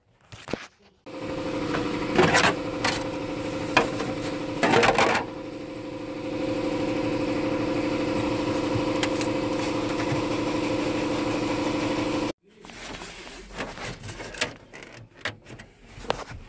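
A small electric power-tool motor running steadily for about eleven seconds, with a few knocks in its first seconds, then cutting off suddenly; a few light clicks follow.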